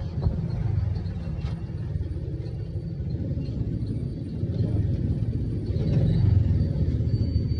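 Steady low rumble of a moving road vehicle, heard from on board as it drives along.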